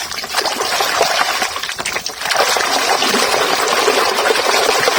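Water splashing and running as muddy toy vehicles are washed, with small clicks and knocks from handling the toys. The flow gets heavier and steadier about two seconds in.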